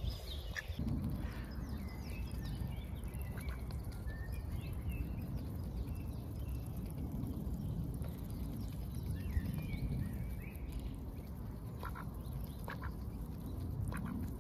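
Mallard ducks, a drake and a hen, feeding at close range, pecking at the grass with soft quacking calls and a few short clicks of the bill about twelve seconds in.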